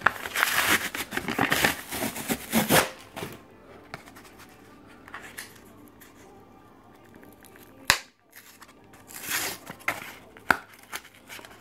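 Cardboard-and-plastic blister pack of trading cards being torn open by hand: about three seconds of continuous ripping and crinkling, then quieter handling, with a sharp snap near the end followed by more tearing and a second snap.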